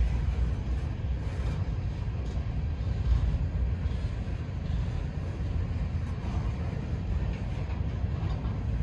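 Covered grain hopper cars of a freight train rolling past, a steady low rumble of steel wheels on rail.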